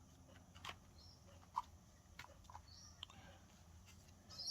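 Near silence with a few faint, scattered clicks and taps from punch-out cardboard building pieces being handled.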